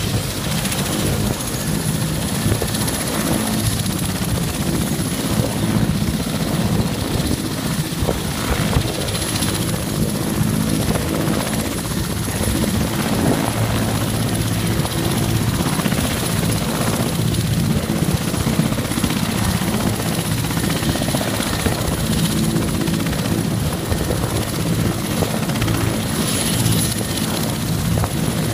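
Mi-172 helicopter's twin turboshaft engines running steadily on the ground with the main rotor turning, a thin high turbine whine over the low rotor and engine noise, during an engine power check.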